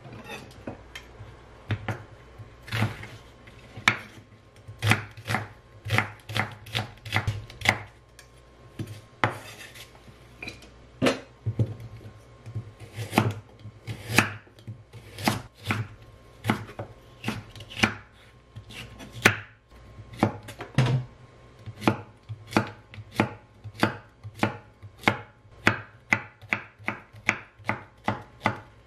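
Kitchen knife slicing carrot and zucchini on a wooden cutting board: a long run of sharp knocks as the blade meets the board, at an uneven pace of about two a second.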